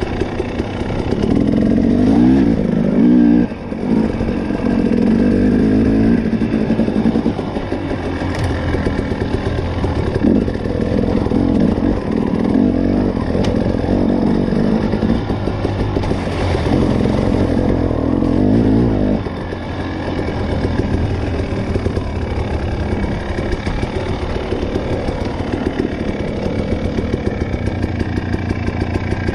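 Fuel-injected two-stroke (TPI) enduro motorcycle being ridden off-road: the engine revs up in repeated bursts under throttle and drops back between them, then settles to a lower, steadier note for the last third.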